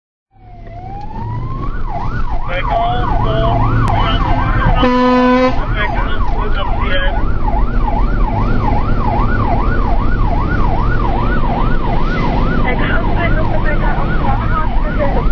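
Fire engine's siren heard from inside the cab, winding up at the start and then wailing fast up and down, about two to three cycles a second, over the low rumble of the truck's engine. A short horn blast sounds about five seconds in.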